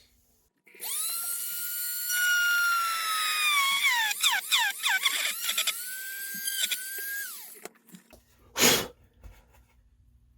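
Small electric drill whining at high speed as it bores a large hole through the plastic model's neck; its pitch dips sharply several times as the bit bites, then it winds down. A short burst of noise follows near the end.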